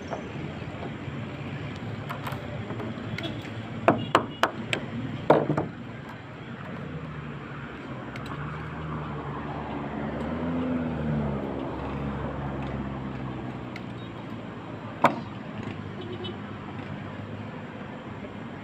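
Sharp knocks of hand work on the rooftop edge: a quick run of four or five about four to five and a half seconds in, and one more near fifteen seconds. These sit over a steady outdoor hum. In between, the drone of a passing engine rises and falls.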